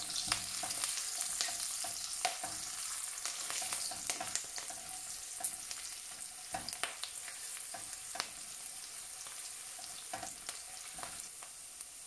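Garlic, ginger and green chilli strips sizzling in hot oil in a non-stick wok as they are added and sautéed, with scattered sharp pops and taps. The sizzle grows gradually quieter toward the end.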